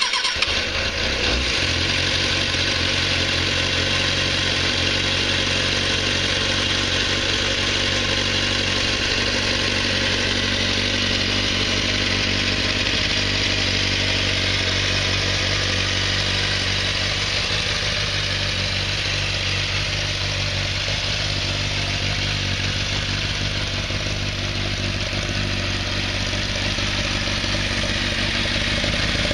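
1994 Kawasaki ZXR400's inline-four engine firing up and settling into a steady idle within the first second or two.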